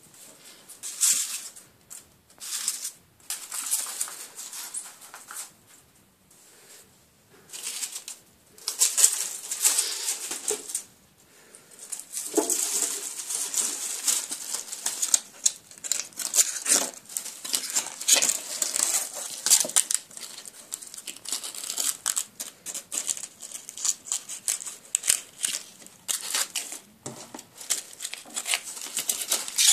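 Dry autumn leaves rustling and crackling in irregular bursts as a ferret scampers and burrows through them. The rustling comes on and off, with short lulls, and is busiest in the second half.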